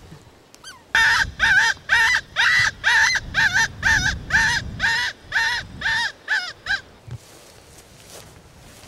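A fox whistle, a hand-blown predator call, sounded in a rapid run of about fifteen squealing notes, roughly three a second, each rising and falling in pitch, for about six seconds before stopping. It imitates a rabbit in distress to draw foxes in.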